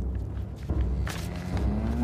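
Low, droning background music with a couple of faint knocks near the middle and a low held note coming in near the end.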